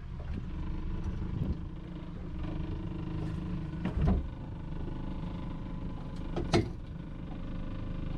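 Fishing boat's engine running steadily at low speed. A short thump comes about four seconds in and a sharp click about six and a half seconds in.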